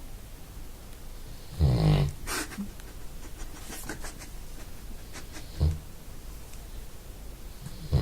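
Dog snoring in its sleep: a loud snore about one and a half seconds in, a shorter one about two-thirds of the way through, and another starting at the very end.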